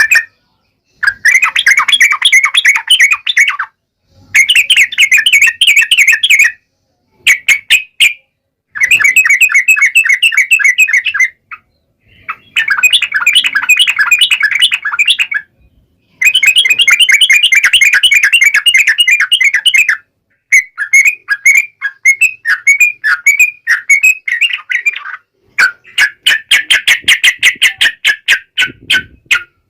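Yellow-vented bulbul (trucukan) singing loud, fast chattering phrases of bubbly notes, each phrase lasting one to four seconds, separated by brief pauses.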